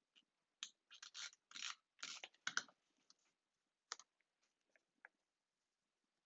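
Faint handling sounds of paper cardstock pieces: a quick run of short rustles and clicks in the first three seconds, then a few scattered ticks.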